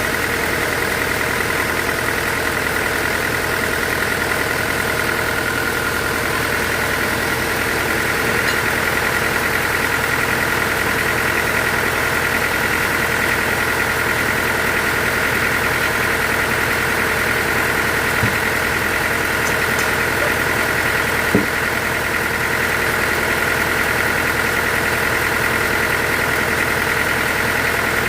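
Sawmill machinery running steadily with a constant high-pitched hum. Two brief knocks come a few seconds apart past the middle.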